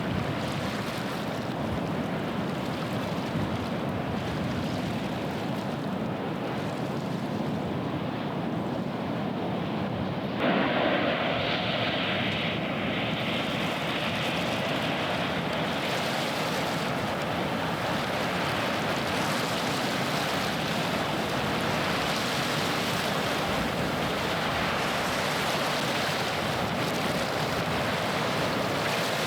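Low, steady drone of a passing ship's engine under wind and waves washing on the shore. About ten seconds in the sound steps up suddenly and stays louder.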